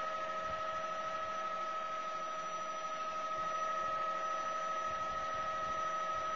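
Helicopter cabin noise in flight: a steady hum with a steady whine and an even hiss, unchanging throughout.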